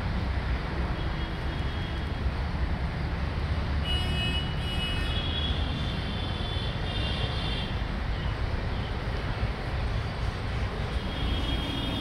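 Steady low rumble of city traffic, with short high, thin tones about four to seven seconds in and again near the end.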